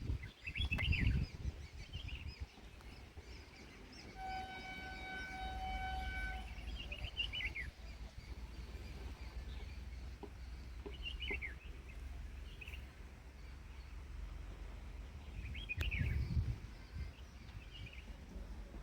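A train horn sounds one steady note for about two seconds, a few seconds in. Birds give short falling chirps on and off, over a low rumble with louder low bursts near the start and near the end.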